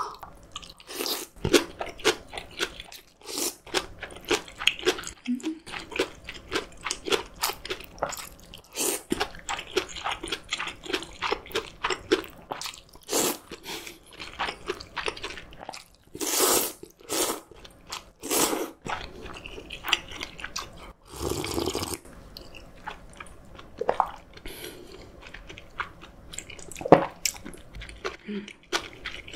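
Close-miked eating: noodles from cold soybean-milk noodle soup (kong-guksu) slurped and chewed, with many short mouth clicks and several longer slurps past the middle.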